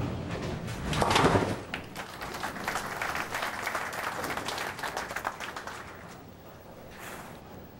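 A bowling ball rolls down the lane and crashes into the pins about a second in, followed by audience applause that fades out after a few seconds.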